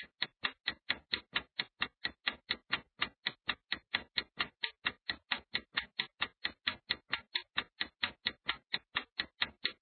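Clock-ticking sound effect for a countdown timer: short, evenly spaced ticks, about four a second, steady throughout.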